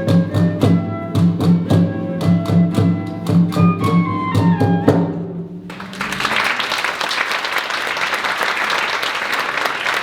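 Early-music ensemble playing a medieval-style piece over a steady low beat; a falling run of notes closes the piece a little past halfway, and audience applause follows.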